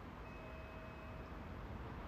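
Faint ambience of an empty train station: a steady low hum and hiss. A thin, faint high tone sounds about a quarter second in and lasts about a second.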